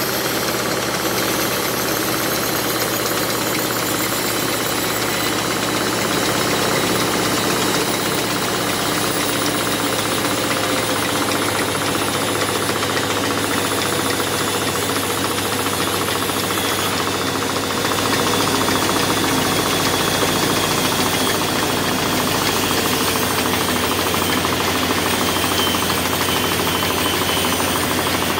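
Large vertical band saw running and ripping a wooden plank lengthwise: a steady mechanical drone with the blade cutting through the wood, a little louder from about two-thirds of the way in.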